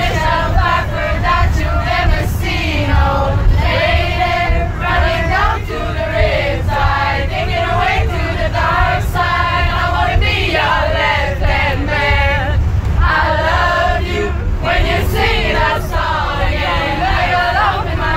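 Background music with a choir singing over a steady low backing.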